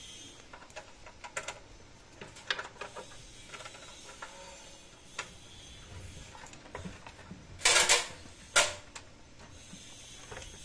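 Scattered clicks and rattles of cables and video connectors being handled at the back of a CCTV DVR, with two louder clatters about eight seconds in.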